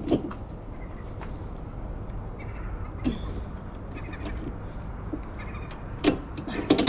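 Cargo strap being handled and thrown over a plastic-wrapped timber load on a lorry trailer. There are scattered light clicks and knocks, then a cluster of louder sharp clicks about six seconds in, over a steady low rumble.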